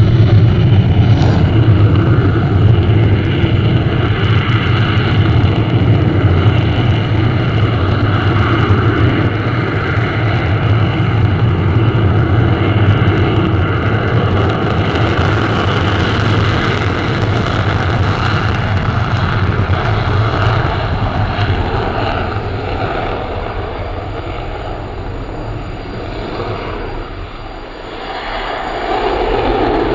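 F-16 Fighting Falcon's single jet engine running at high power as it takes off and climbs away. It is loud and steady for most of the time, fades over several seconds toward the end, then swells again just before the end.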